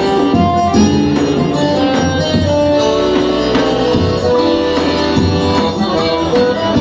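Dance-band music: a melody of held notes over a bass line and percussion.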